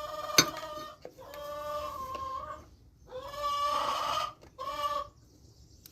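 A chicken calling: four drawn-out squawks in a row, each about a second long. A sharp metallic click about half a second in.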